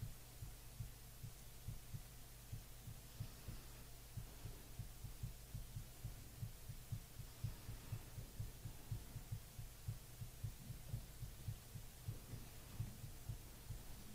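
Faint, steady low electrical hum with soft, low thuds about three to four times a second.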